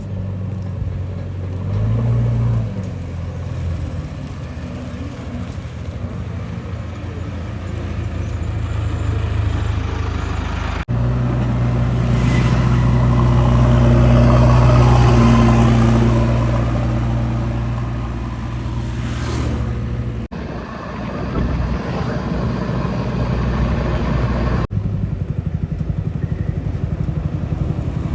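Heavy diesel machinery engine running steadily, growing louder for several seconds around the middle. The sound changes abruptly three times, as clips of the engine are joined.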